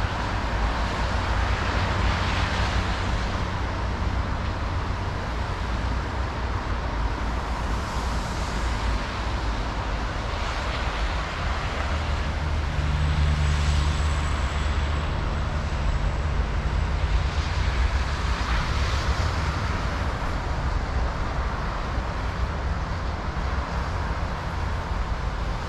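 Steady city traffic, with vehicles passing every few seconds and swelling and fading in turn over a continuous low rumble.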